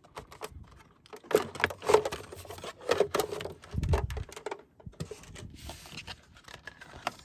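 Handling of a plastic embossing folder and card stock: crinkling, clicking and scraping as the folder is opened and the embossed card taken out, with a dull thump about four seconds in.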